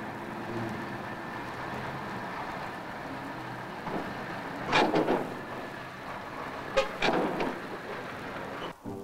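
Heavy army truck engine running as the truck is driven up a ramp onto a railway flat wagon. Two loud bursts of noise come about halfway through and again past seven seconds, and the sound cuts off suddenly just before the end.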